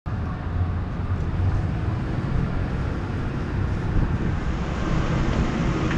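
A low, steady engine rumble.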